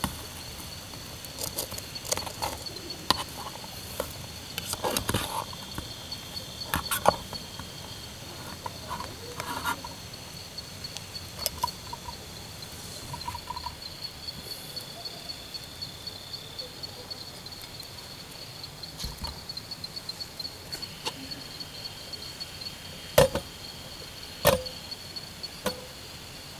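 Insects calling steadily in a rapid, even pulse at a high pitch, with scattered short clicks and knocks over it. Two sharper knocks come near the end.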